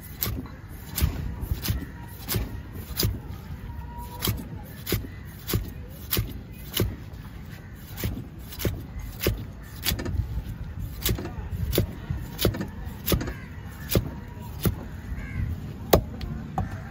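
Large curved fish knife chopping a seela (barracuda) into steaks, each stroke cutting through the fish and knocking into a wooden log chopping block: sharp chops at a steady rhythm, a little under two a second.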